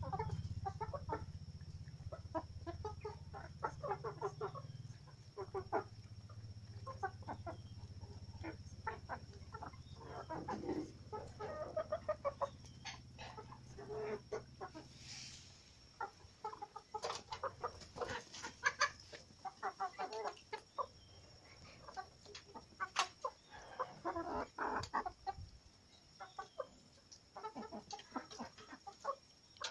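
A flock of four-month-old kienyeji chickens clucking softly as they feed on scattered maize grains, with many short sharp taps of beaks pecking the ground. A low hum runs under the first half and fades out about halfway through.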